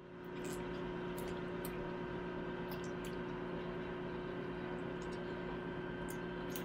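A steady background hum of several fixed tones over a soft hiss, with a dozen or so faint, short high clicks scattered through it.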